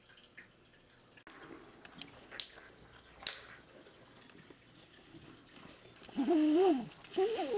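Maine Coon cat meowing twice near the end: first a wavering call, then a shorter one that rises and falls. A few light clicks and taps come before it.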